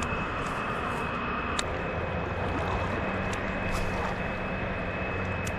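Steady rushing of river current around a wading angler, with a low hum underneath and a few sharp clicks.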